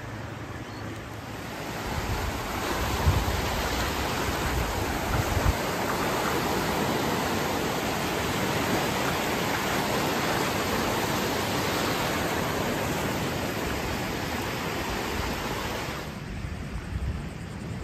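Ocean surf breaking and washing up the beach: a steady rush of waves that swells about two seconds in and falls away near the end, with a few low thumps of wind on the microphone.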